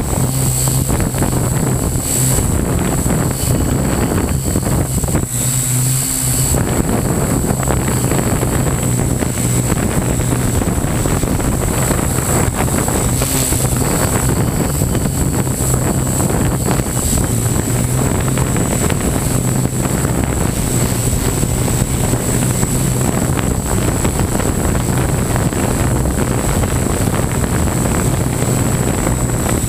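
Model hexacopter's electric motors and propellers droning steadily, heard from the onboard camera, with some wind noise on the microphone.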